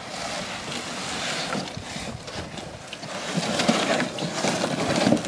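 Flat cardboard pieces being slid and pulled out of a cardboard box: continuous scraping and rustling, growing louder near the end.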